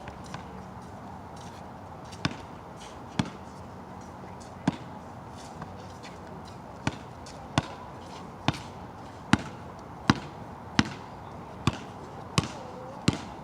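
Basketball bouncing on a wet outdoor court. The bounces are sparse at first, then become a steady dribble of about one bounce every ¾ second in the second half. A steady hiss of rain runs underneath.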